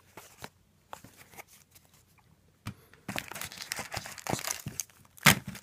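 A trading card pack's wrapper being torn open and crinkled, starting about three seconds in with a sharp loud crackle near the end. Before that, only faint light taps and clicks of cards being handled.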